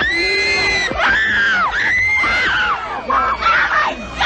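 Young women and girls screaming in excitement as fans: a string of long, high-pitched screams, rising and falling in pitch.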